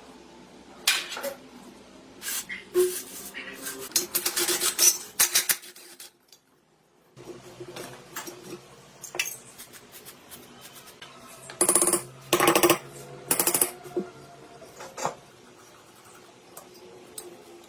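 Metal parts and tools being handled: irregular clinks, clatters and scrapes in two busy spells, with a brief drop to near silence in between.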